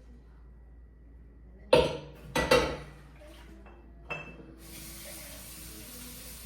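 A few sharp clinks and clatters of dishes, then a tap turned on about halfway through, its water running steadily.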